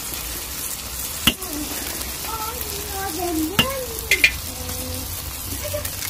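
Eggs, sliced tomatoes and onions sizzling steadily in a steel paella pan over a charcoal grill. There are a few sharp pops, one about a second in and a few more between three and a half and four and a half seconds in.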